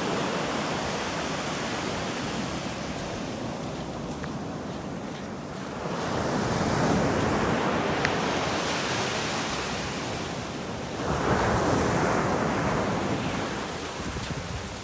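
Ocean surf: waves washing in as a steady rush that swells twice, with some wind buffeting the microphone.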